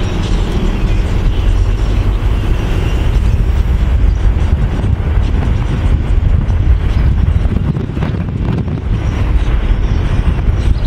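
Wind rushing over the microphone of a camera held out of a moving car's open window, over a steady low rumble of the car's tyres and engine.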